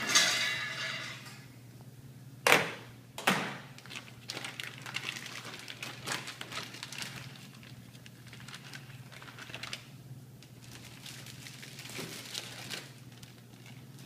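Food-prep handling noise as ground meat diet is scooped into plastic bags: a clatter that dies away in the first second, two sharp knocks less than a second apart, then small clicks and plastic rustling over a steady low hum.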